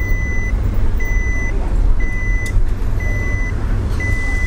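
Steady electronic beeping, one half-second beep every second at a single high pitch, over the low rumble of a car driving, heard from inside the cabin. A single click about two and a half seconds in.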